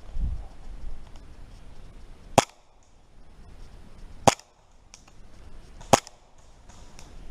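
Airsoft gun firing three single sharp shots, spaced a little under two seconds apart.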